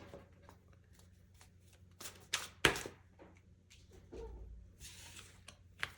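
Tarot cards being handled and shuffled: a run of light snaps and swishes, with the loudest snap a little under three seconds in.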